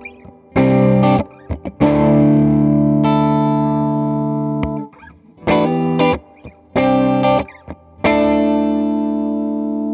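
Electric guitar chords played through the Electra MPC-12 compressor module, set with its switch in the gentler position. Two or three short chord stabs are followed by a held chord that rings on and sustains a long time, and the pattern plays twice. The compressor still sustains a lot, but is kinder and gentler in this setting.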